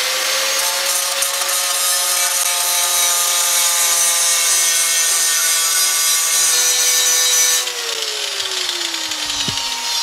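Angle grinder running at full speed and cutting metal, a steady high whine under a loud grinding hiss. About three-quarters of the way through, the cut stops and the disc winds down, its whine falling steadily in pitch.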